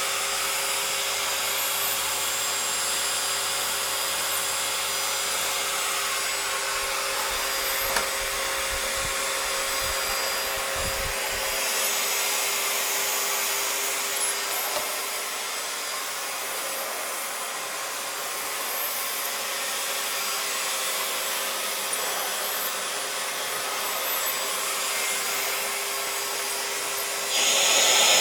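Household vacuum cleaner running steadily, its motor giving an even hiss with a steady hum. It gets louder and brighter for about a second near the end.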